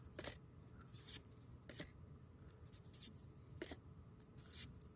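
Faint crinkling and clicking of a foil trading-card booster pack and its cards being handled and opened. The sounds are short and scattered, with no steady rhythm.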